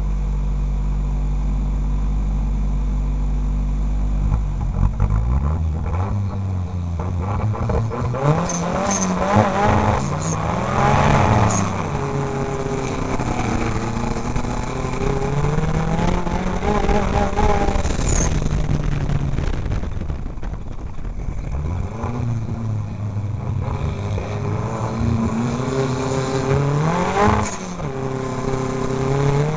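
Off-road racing truck's engine heard from inside the cab. It idles steadily for the first five seconds or so, then revs hard and repeatedly climbs and drops in pitch as it accelerates and shifts through the gears.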